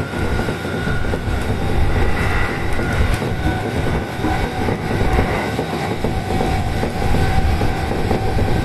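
Yokosuka Line electric commuter train running along the track, heard from inside the front car: a continuous rumble of wheels on rail with steady high whining tones over it and a few sharp clicks.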